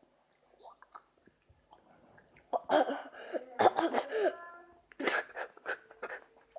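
A boy coughing and spluttering in reaction to the extreme sourness of shock gum, then laughing. After a quiet start, the outbursts come in two bouts, from about two and a half seconds in and again near the end.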